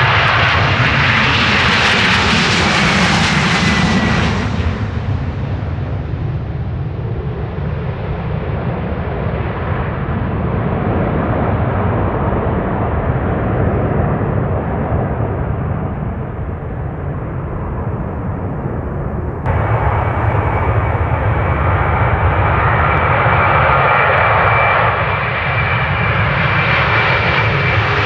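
Twin-engine jet airliner on take-off thrust: a dense engine roar with a high fan whine, loudest at first and fading as the aircraft climbs away. About two-thirds of the way through it changes abruptly to another jet's louder engine roar with its own steady whine.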